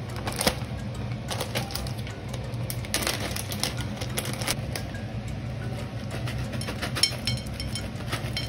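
Plastic snack pouch torn open at its notch and crinkled, then shaken so the dried okra snack pieces spill out, giving bursts of sharp crackles about half a second in, around three seconds in and near seven seconds. A steady low hum runs underneath.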